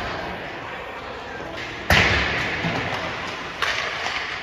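A hard ice hockey shot about two seconds in: a sharp crack of stick on puck that echoes through the rink, followed by a smaller knock shortly before the end.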